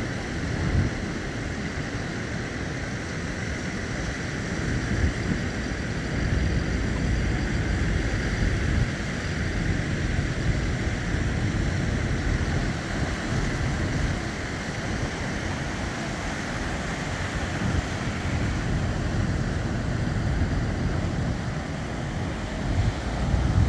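Ocean surf washing onto the beach, with wind buffeting the microphone in uneven low rumbles.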